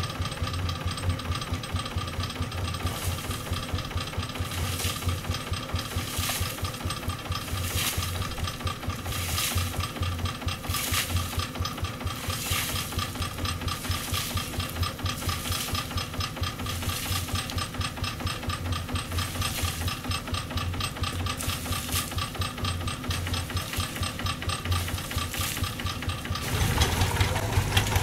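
Quick G3000 Zeva hand tractor's single-cylinder diesel engine running steadily, while water is splashed over the machine about every second and a half to wash it. The engine gets louder near the end as the tractor is driven off.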